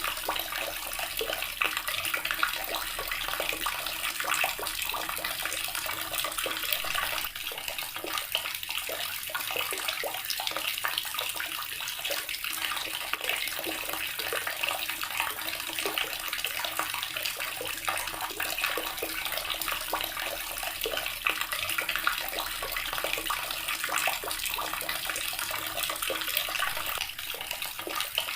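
A water tap running steadily, its stream splashing into a basin or tub with a constant hiss full of small spatters.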